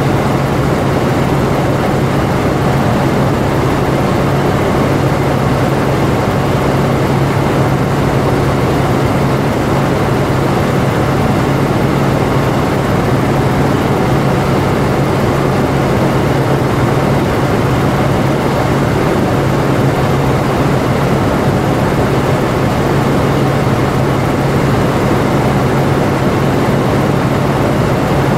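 Helicopter in flight heard from inside the cabin: loud, steady rotor and engine noise with a constant low hum underneath.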